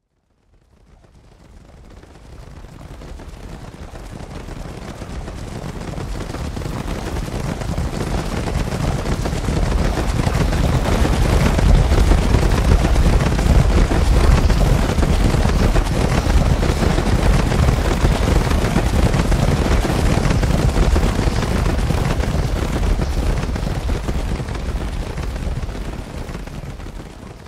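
Stampede sound effect: a dense low rumble of many pounding hooves from a running bison herd. It fades in from silence, is loudest midway, and fades out near the end.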